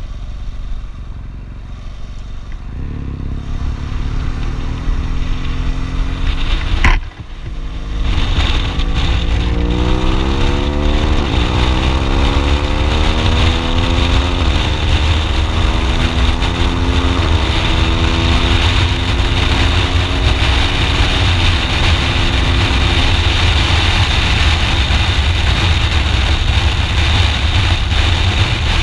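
BMW R1200GS Adventure's boxer twin accelerating up through the gears: the engine note rises and drops back at each of about four gear changes. A sharp knock comes about seven seconds in, and steady wind rush on the microphone builds with speed.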